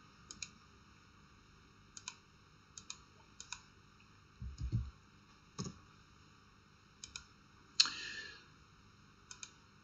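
Faint, scattered clicks of a computer mouse and keyboard, several in quick pairs, with a low thump about halfway through and a short rustle near the end.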